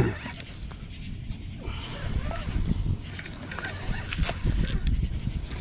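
Frogs and crickets calling in the night over a low rumble of handling noise from a fishing rod and spinning reel as a fish is reeled in, with a few faint clicks.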